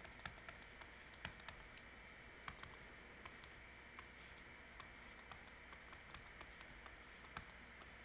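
Near silence with faint, irregular clicks, roughly two a second: a pen stylus tapping on a tablet's writing surface as it writes.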